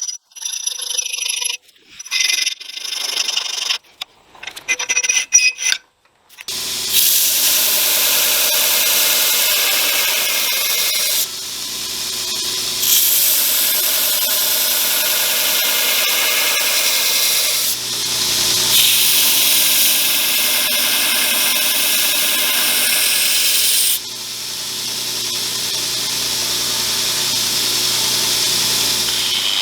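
A few short metal clinks and knocks, then about six seconds in an electric grinder starts up and runs steadily. Steel is ground against it in long passes, and the grinding changes level or breaks off briefly several times.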